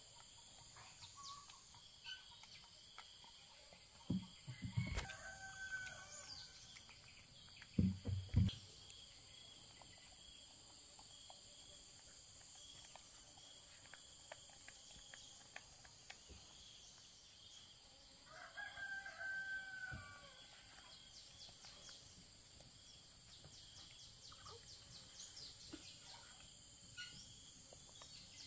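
A rooster crowing twice, about five seconds in and again near twenty seconds, over a steady high insect drone. A few dull thumps around four and eight seconds in are the loudest sounds.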